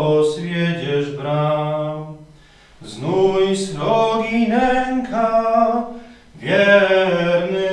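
A man singing a Polish hymn unaccompanied, in slow held notes, with two short breaks between phrases.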